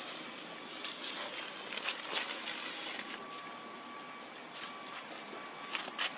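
Outdoor ambience: a steady hiss, with a faint held high tone coming in about halfway, and a few short clicks or crackles, the loudest two close together near the end.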